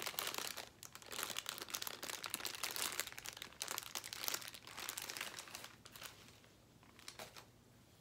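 Crinkling and rustling of a balloon package as balloons are sorted and pulled out by hand. It goes on busily, then dies down about six seconds in, leaving a couple of light clicks near the end.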